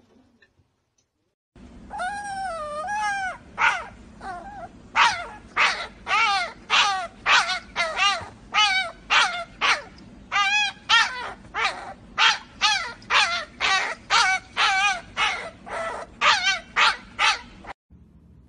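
Puppy's high-pitched cries starting about a second and a half in: one long wavering call, then a run of short wavering yelps at about two a second. They stop abruptly near the end.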